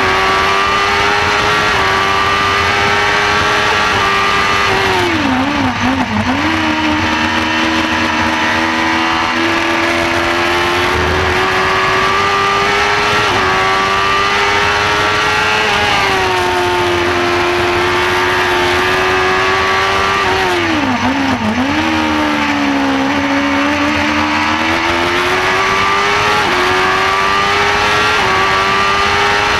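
Onboard sound of a Shortcar race car's engine at high revs on track, over steady wind and road rush. About five seconds in, and again just past twenty seconds, the revs fall away sharply with a couple of quick dips. Each time they then climb back up through the gears.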